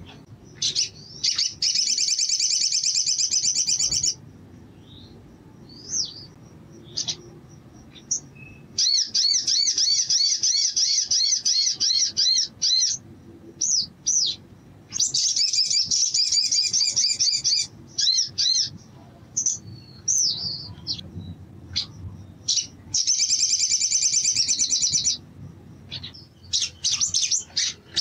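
Male olive-backed sunbird singing: four bursts of very fast, high-pitched trilling, each two to three seconds long, with short single chirps in the gaps between them.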